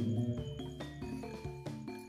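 Background music: a light melody of quick, short notes over a steady low bass note.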